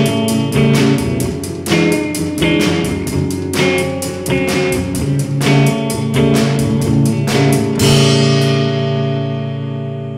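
Instrumental rock music with guitar and drums; the drumming stops about eight seconds in and a final chord rings out, fading slowly.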